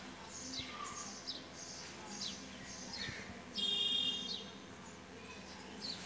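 Caged budgerigars chirping: a run of short, quick falling chirps about every half second, with one louder, harsh call about three and a half seconds in.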